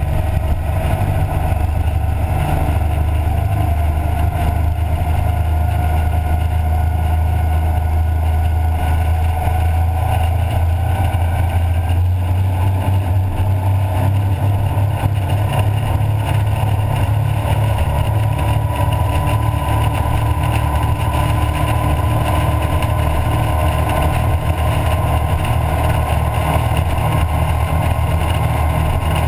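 Twin Mercury 496 Mag big-block V8 inboard engines of a Formula 33SS powerboat running near wide open throttle, a steady deep drone. A whine climbs slowly in pitch through the middle as the boat gains speed, then holds. Rushing water and wind run under it.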